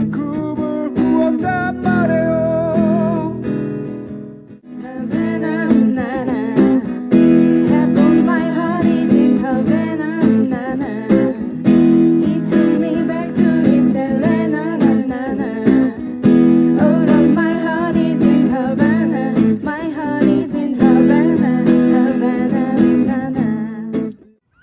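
Band music with strummed acoustic guitar and a melody line over it; it dips briefly about four and a half seconds in, then picks up again and cuts off just before the end.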